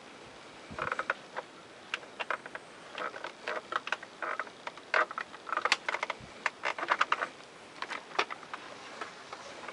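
Irregular run of light clicks and short clatters of things being handled, starting about a second in, with no motor running.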